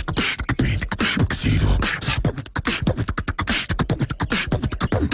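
A human voice beatboxing: fast percussive mouth sounds, low kick-like thumps and sharp snare-like clicks, several a second without a break.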